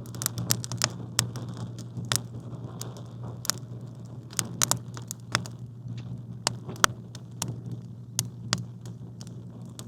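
Campfire crackling: irregular sharp pops and snaps of burning wood, several a second, over a steady low hum.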